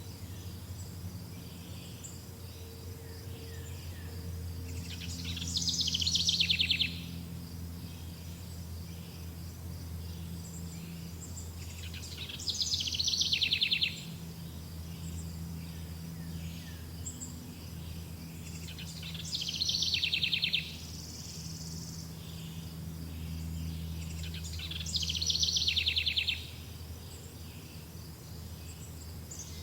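Summer forest ambience: a songbird sings the same loud, descending trilled phrase four times, about every six to seven seconds, each lasting about a second and a half. Between the songs come fainter chirps, a steady high insect drone and a low steady hum.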